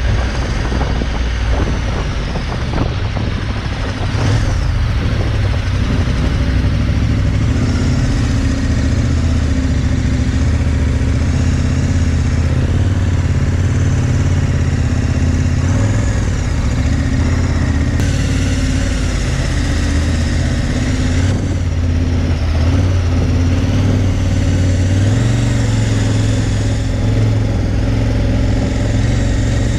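KTM 1190 Adventure's V-twin engine running at low road speed, heard from the bike itself, with small rises and falls in engine speed.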